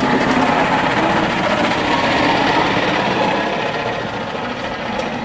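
Large truck engine idling close by: a loud, steady, rapid clatter that eases a little near the end.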